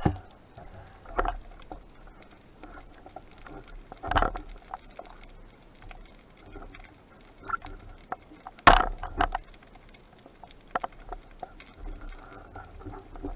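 Underwater knocks and clicks from spearfishing gear and a speared fish being handled against the camera housing, a handful of sharp knocks over muffled water noise, the loudest about nine seconds in.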